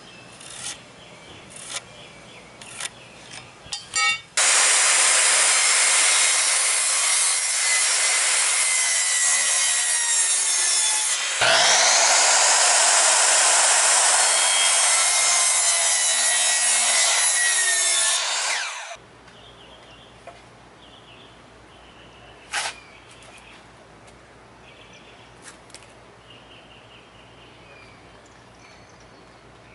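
Electric miter saw running and cutting through cedar boards: two loud stretches of about seven seconds each, with a sudden fresh start in the middle. Before the cutting there are light taps of a pencil and metal speed square on the wood; afterwards one sharp knock stands out against a low background.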